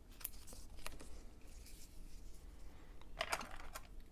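A few light clicks and taps from hands handling small parts inside an open MacBook Air, with a short cluster of sharper clicks about three seconds in.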